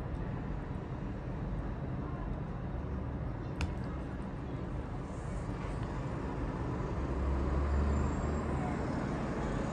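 Steady road-traffic noise with a low rumble that swells about seven seconds in. A single sharp click about three and a half seconds in.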